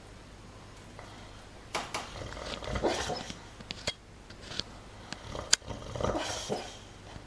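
A dog asleep and dreaming, making noisy breaths and low vocal sounds in its sleep in two stretches, about two to three seconds in and again around six seconds, with a few sharp light clicks between.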